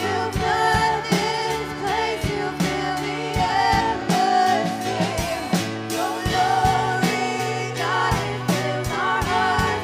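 Live worship music: a woman singing into a microphone over a band with drums and steady low bass notes.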